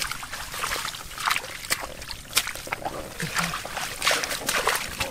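Irregular wet slaps, crackles and rustling as live catfish are handled and flop against each other in a plastic tub among dry grass.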